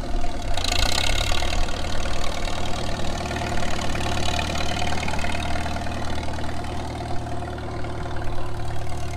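Farmall H tractor's four-cylinder gasoline engine running steadily through a straight-pipe exhaust as the tractor drives across a field.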